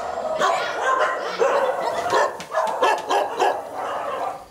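Several dogs barking and yelping in a kennel, their short barks overlapping in a dense, continuous chorus.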